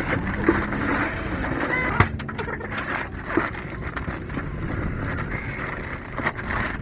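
Dry feed (scratch grain and layer pellets) being poured and mixed, a steady rushing rattle with a few sharp knocks.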